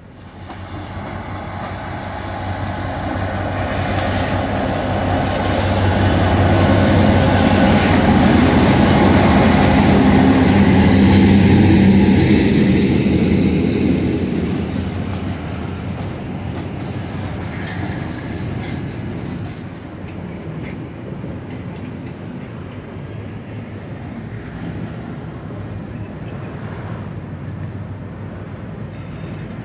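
Ferrosur Roca diesel-hauled freight train passing close by: the locomotive's engine builds and is loudest in the first half, then the container flat wagons roll by with a steady rumble of wheels on rails. A thin, steady high whine runs through it, rising slightly in pitch near the end.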